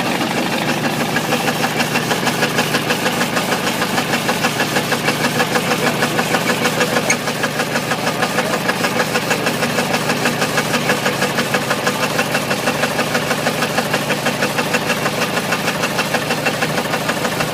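Ford 351 Windsor V8 running with a steady, rapid rhythmic knock, the rod knock of a spun connecting-rod bearing.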